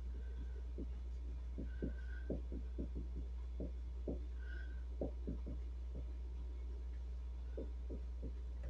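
A marker writing on a plastic freezer bag lying on a wooden table: faint, irregular soft taps and scratches of the pen strokes, with a few short squeaks. A steady low hum runs underneath.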